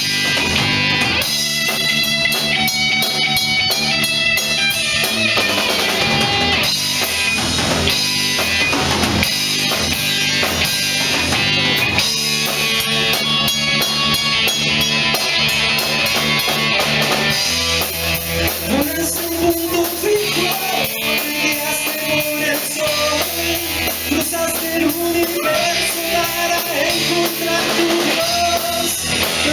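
Rock band playing an instrumental passage: guitar over a drum kit. A held lead melody comes in about eighteen seconds in.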